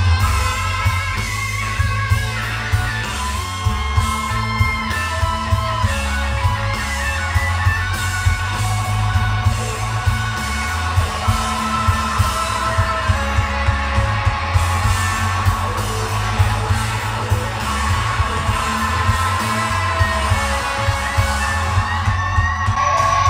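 Music with guitar, a steady beat and heavy bass, played back through hi-fi loudspeakers and an active subwoofer under test.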